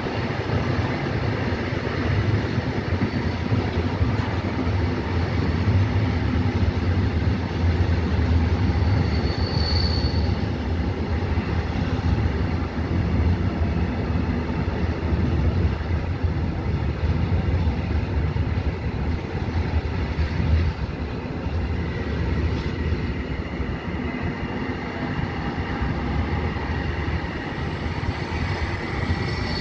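Passenger train coach running at speed: a steady rumble of wheels on rails, with a short high-pitched wheel squeal about ten seconds in and another at the end.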